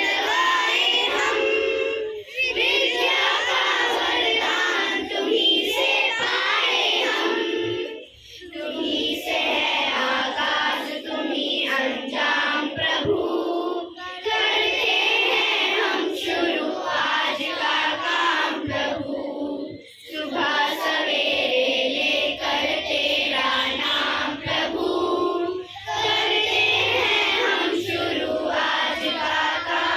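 A group of children singing a song together in chorus, in sung phrases with a brief break about every six seconds.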